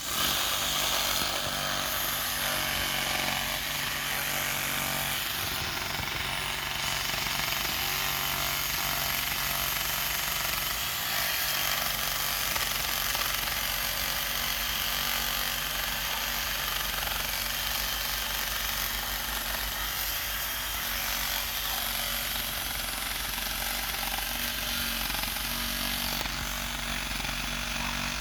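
A Craftsman 20V brushless reciprocating saw starting up suddenly and then running steadily without a break, its blade sawing into the trunk of a medium-sized tree.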